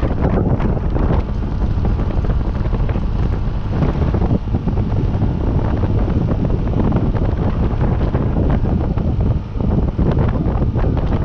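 Wind rushing and buffeting hard on the microphone of a moving vehicle, a loud steady roar with a brief drop about three-quarters of the way through.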